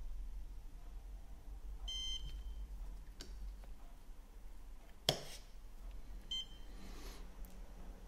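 Woodpecker iLED dental curing light beeping: a longer beep about two seconds in as its 20-second curing cycle ends, then a sharp click about five seconds in and a short beep a second later as the next curing cycle starts.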